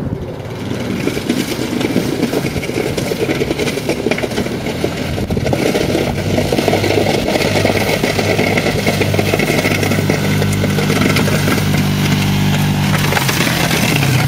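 ATV engine running under load as it pushes a 52-inch plastic plow blade through snow, with a rough scraping hiss over the engine. The engine note comes up about five or six seconds in, holds steady, and falls away near the end.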